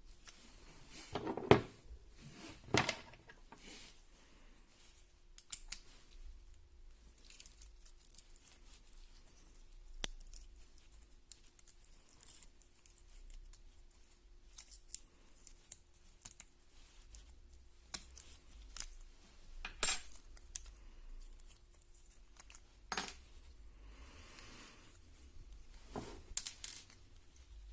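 Small metal parts of a Victorinox pocket knife clicking and clinking as it is taken apart, with a handful of sharp taps spread out, the loudest about 1.5, 3, 20 and 23 seconds in.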